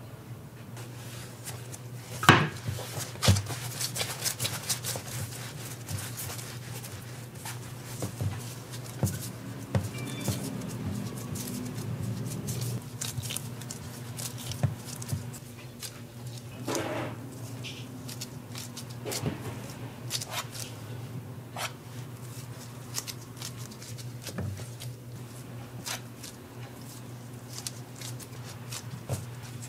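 A metal spatula clicking, tapping and scraping against a metal tray while dough is filled and shaped by hand, with scattered sharp taps, the loudest two about two and three seconds in. A steady low hum runs underneath.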